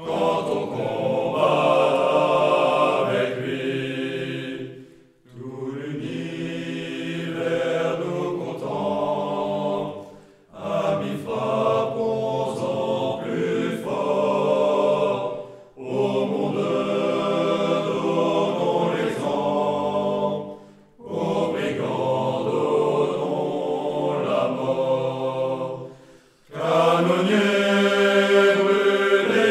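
A choir sings a French military song in phrases about five seconds long, with a short break between each.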